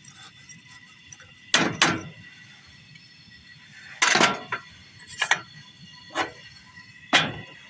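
Sharp knocks and clunks of things being handled, about six in all, two of them close together near the start, over a faint steady hum.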